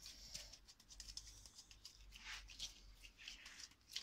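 Faint, soft, irregular handling noises of disposable-gloved hands rolling raw minced meat into a ball.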